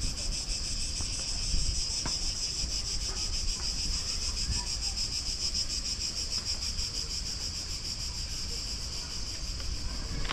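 Chorus of insects in the park trees: a steady, high, finely pulsing buzz, with a low rumble underneath.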